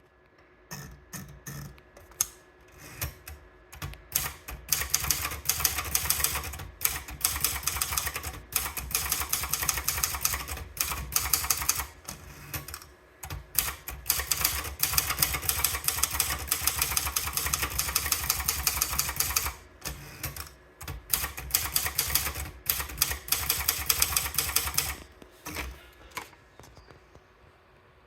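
Sperry Remington manual typewriter being typed on: rapid keystrokes clacking in quick runs, broken by a few short pauses, stopping shortly before the end.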